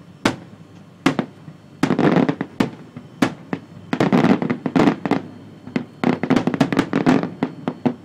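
Fireworks display: a couple of single bangs, then from about two seconds in dense runs of rapid bangs and crackling, broken by short pauses.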